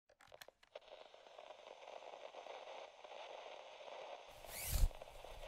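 Logo intro sound effect: a few sharp clicks, then faint crackling static, and near the end a sweeping whoosh with a low thud.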